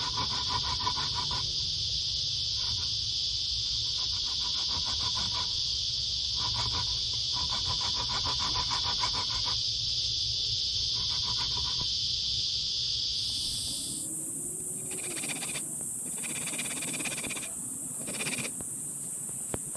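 A steady, high-pitched insect chorus, with a lower pulsing animal call repeating in runs through the first two-thirds. About fourteen seconds in, the chorus switches abruptly to a much higher-pitched drone.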